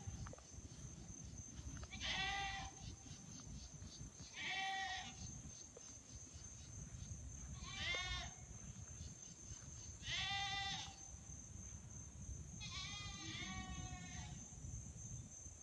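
Goats screaming: six loud bleats, one every two seconds or so, each about half a second long, the last two close together.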